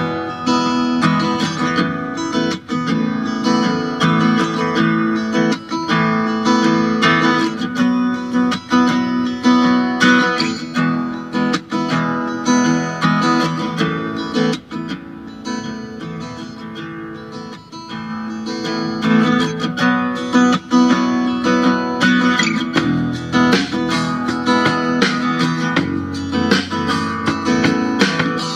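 Acoustic guitar music with plucked and strummed notes, played from a phone through a TPA3110D2 class-D stereo amplifier module into a large oval speaker and a small round speaker.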